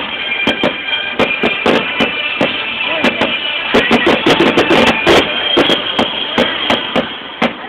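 Aerial fireworks going off with many sharp, irregular bangs and crackles, over music with drums.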